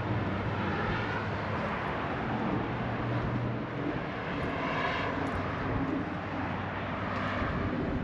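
Road traffic: a few vehicles pass one after another in rising and falling swells, over a steady low engine drone that fades out about halfway through.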